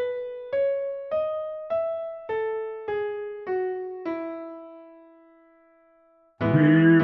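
Piano-like keyboard playing a hymn melody one note at a time, a struck note about every 0.6 s, each fading. The last note is held and dies away, and after a second of silence, about six seconds in, a much fuller and louder musical passage begins.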